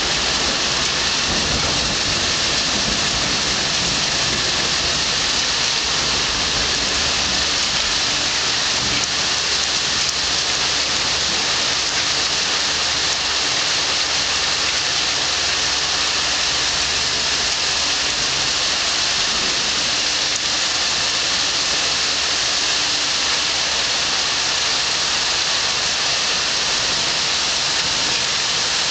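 Heavy rain pouring steadily in a thunderstorm: an even, unbroken hiss with no single thunderclap standing out. A low hum from a nearby air conditioner unit runs underneath.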